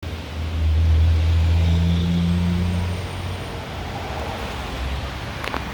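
Car engine running, louder over the first few seconds and then easing off to a lower, steady note. A single sharp click sounds near the end.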